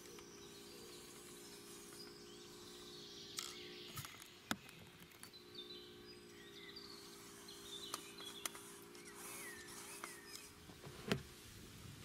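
Faint steady whine of an RC crawler's 370 electric motor and gearbox, dropping out briefly a few seconds in, with several sharp clicks and knocks spread through. Birds chirp in the background.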